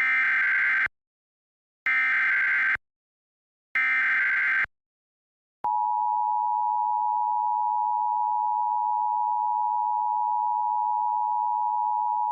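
Emergency Alert System tones: three short bursts of SAME digital header data, each about a second long with about a second between them, then the steady two-tone EAS attention signal starting about five and a half seconds in. The alert announces a National Weather Service tornado warning.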